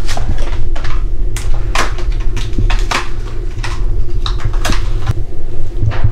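Kitchen knife slicing boiled octopus on a cutting board: irregular taps and scrapes, about a dozen in six seconds, over a steady low hum.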